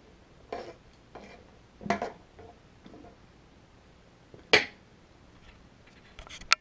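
Metal spoon stirring pasta shells and water in a frying pan: a few soft scrapes and clinks against the pan, then one sharper clack, the loudest, about four and a half seconds in.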